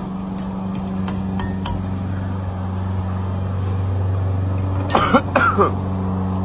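A few light clinks of a utensil against a bowl, then a person coughing on spicy noodles in two loud bursts about five seconds in. A steady low hum runs underneath.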